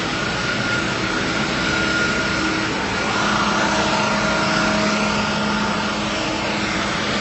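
A steady engine drone with constant humming tones and a thin high whine over a wash of outdoor noise. It swells a little partway through.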